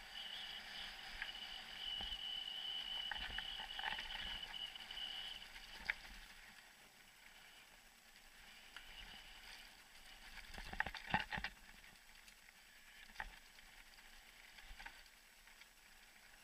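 Mountain bike riding over a dirt trail: faint running noise with scattered knocks and rattles from bumps, including a cluster of sharp knocks about two-thirds of the way through. A steady high tone sounds for the first five seconds or so.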